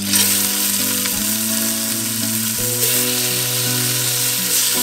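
Raw chicken feet dropped into hot oil in a cast-iron pot, sizzling loudly; the hiss starts suddenly and then holds steady. Background music with held tones plays underneath.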